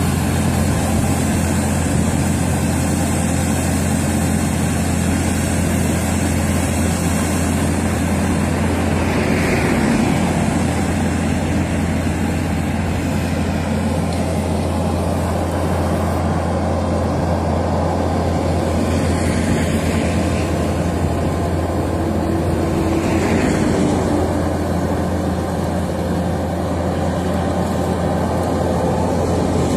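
Skid steer loader's engine running steadily with a constant low hum, with a few faint brief whines rising above it.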